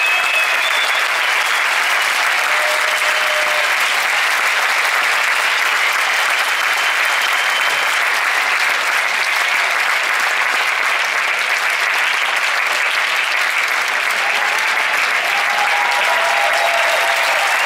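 Concert audience applauding steadily, a dense unbroken clapping.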